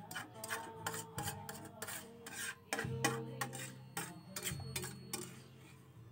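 Metal utensils scraping and clicking irregularly against a cooking pan and dishes as cooked fish and broth are served out, over quiet background music.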